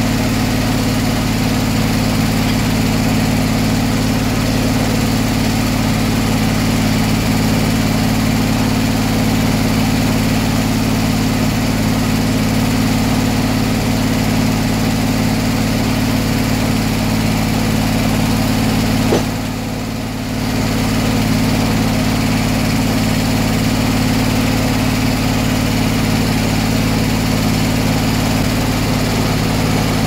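Circular sawmill running: the engine driving the large circular saw blade drones steadily, with a brief dip in level about two-thirds of the way in.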